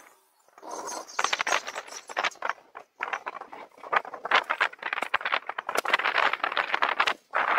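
Bicycles rolling along a street, with rapid, irregular clicking and rattling and little wind noise. The sound cuts out briefly near the start and again near the end.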